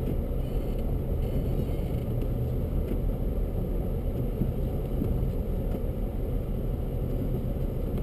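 Steady low rumble inside a car's cabin as it drives slowly along a snow-covered road, engine and tyre noise.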